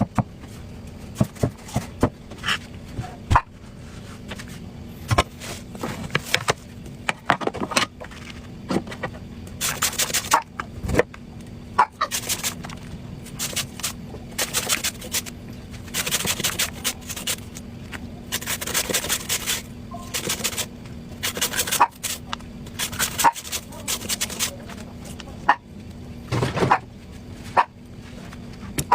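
A knife cutting and scraping into watermelon rind and flesh: irregular sharp clicks of the blade and short rasping scrapes, over a steady low hum.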